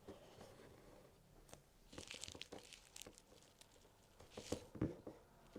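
Crewel wool being pulled through embroidery fabric with a needle: two soft rasping pulls, about two seconds in and again near the end, with a few faint knocks from the needle and fabric.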